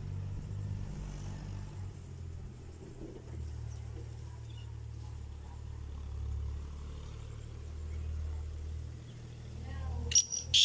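A low, steady rumble, then about ten seconds in a black francolin starts its loud, harsh call in a quick run of sharp notes.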